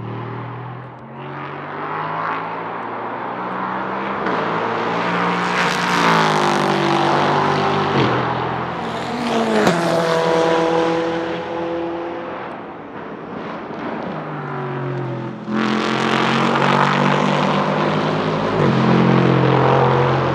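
Nissan VK56 5.6-litre V8 of a Ligier JS P320 LMP3 prototype at full throttle, passing and pulling away: the engine note climbs and drops back with each upshift, loudest about six and ten seconds in, then surges again from about fifteen seconds.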